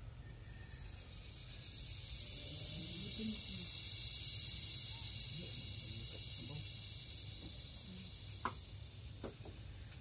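Cicada calling: a high, hissing buzz that swells over the first couple of seconds, holds, then slowly fades toward the end. Two sharp clicks sound near the end.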